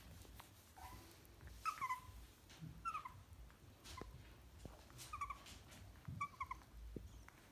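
Dog whimpering: about five bursts of short, high, squeaky whimpers, several coming as quick double or triple notes that dip in pitch.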